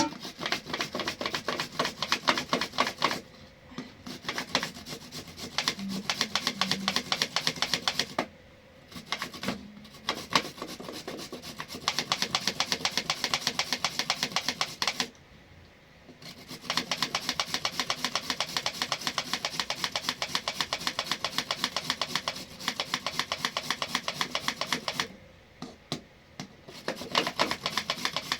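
Rapid, even tapping, about eight strokes a second, in several long runs broken by short pauses.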